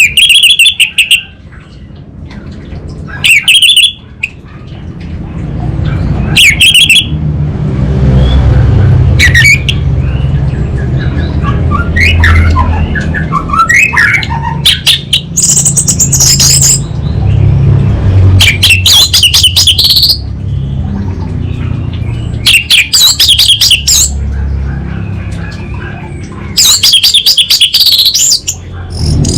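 Orange-headed thrush giving loud bursts of rapid, crackling chatter, the call bird-keepers name 'kabel konslet' (short-circuiting wire). Each burst lasts about a second and comes back every few seconds, over a steady low hum.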